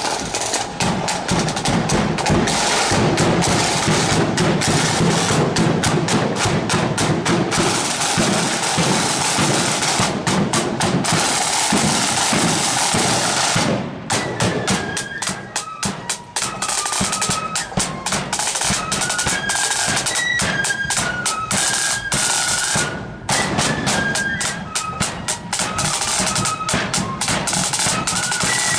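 Marching flute band: snare and bass drums play a rapid, rolling beat on their own, then about halfway through the flutes come in with a melody over the drums.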